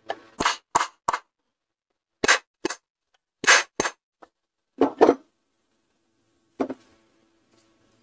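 Sharp knocks of a block of wood tapping a ceiling fan's metal body and cover to seat the cover evenly onto the body: about eleven taps, in quick runs of two to four with short pauses between.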